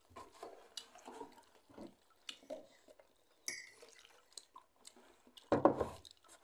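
Quiet table sounds of eating and drinking: small clicks of a fork against a ceramic plate and soft sips from a cup, with one louder thud near the end.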